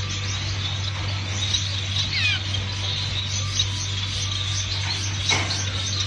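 Caged finches chirping in a breeding room, many small high calls overlapping, with a quick falling run of chirps about two seconds in. A brief rustle comes a little after five seconds, and a steady low hum runs underneath.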